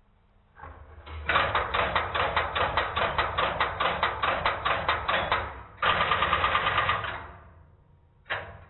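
Step-by-step (Strowger) telephone exchange selector operating: a quick, even train of sharp mechanical clicks, about five a second, as the vertical magnet steps the shaft up for the dialled digit. Then a faster rattling burst as the rotary magnet steps the wipers round hunting for a free trunk, and a single relay click near the end.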